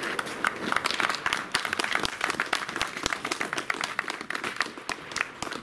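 A small group of people applauding: a dense, steady run of hand claps.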